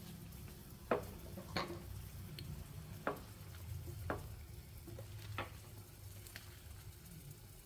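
Pot of soup broth at a rolling boil, a steady low bubbling, with about five sharp clicks spread through.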